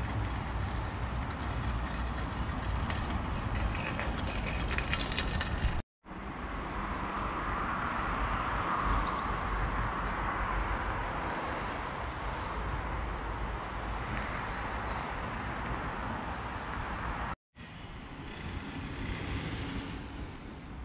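Steady outdoor background of distant road traffic, broken twice by abrupt cuts. In the middle stretch a few faint high chirps sit above it.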